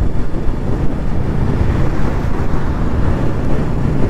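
Steady wind rush buffeting the microphone on a moving motorcycle, with the engine's low rumble underneath.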